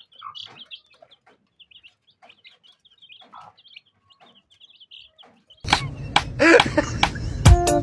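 Faint birds chirping, a quick run of short high chirps with a few lower clucking calls. About five and a half seconds in, loud music with a strong beat cuts in and drowns them out.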